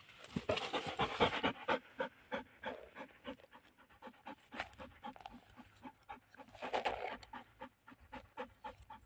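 Wire-haired pointer dog panting rapidly and rhythmically, about three breaths a second, loudest in the first two seconds and again around seven seconds in.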